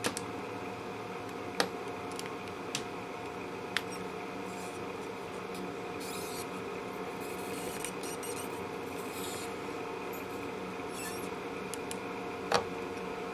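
Soldering-iron work on a guitar's metal volume pot: a handful of sharp clicks and taps of the iron and wire against the pot casing, the loudest about a second and a half in and near the end, with soft scratchy rubbing in the middle stretch, over a steady background hum.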